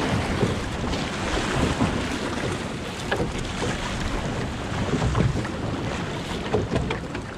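Wind buffeting the microphone over water sloshing against a small boat's hull, a steady rushing noise with a low rumble.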